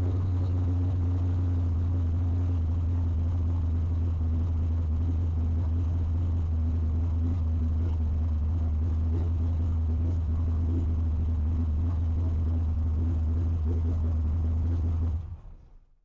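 Fox-body Mustang engine on Holley Dominator EFI idling steadily after a warm start, its fast idle easing down from about 1,300 to 1,150 rpm as the idle settles. About 15 seconds in the engine is switched off and the sound dies away.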